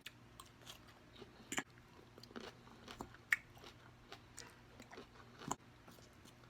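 Close-miked eating sounds: chewing and mouth clicks, with a few sharper crunches or smacks about 1.5, 3.3 and 5.5 seconds in.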